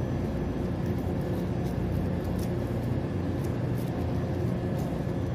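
Steady low mechanical hum, like a fan or ventilation unit running, with a few faint light ticks over it.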